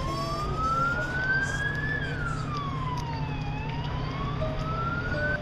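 Emergency vehicle siren in a slow wail, gliding up over about two seconds, down over about a second and a half, then up again, over a steady low rumble. It cuts off suddenly at the end.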